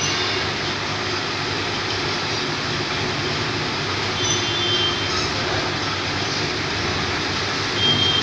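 Induction annealing machine running while a carbon-steel pipe U-bend is heated: a steady mechanical drone with a low hum, and a thin high whistle that comes in briefly about four seconds in and again near the end.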